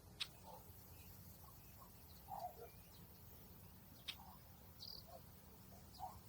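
Quiet outdoor nature ambience: a faint low steady hum with a few scattered short chirps and sharp ticks, two of them sharper, just after the start and about four seconds in.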